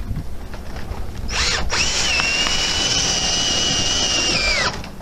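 Cordless drill driving a screw into the metal rail that holds synthetic thatch. A short burst comes about a second in, then a steady high motor whine for nearly three seconds, which drops in pitch as it stops near the end.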